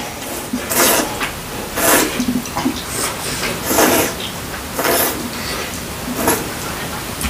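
Hot knife-cut noodles (kalguksu) in broth being slurped, in about six short slurps roughly a second apart.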